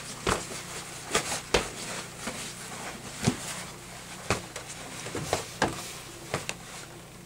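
A run of about ten irregular, sharp thumps and slaps: boxing-glove punches landing on a body, some close together in pairs.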